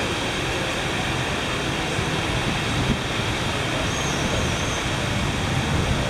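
Steady background rumble and hiss, like distant traffic or wind, with no distinct events.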